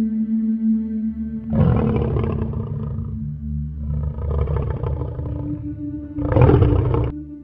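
Lion roaring three times, long rough roars with the last one the loudest and cut off abruptly, over a steady ambient music drone.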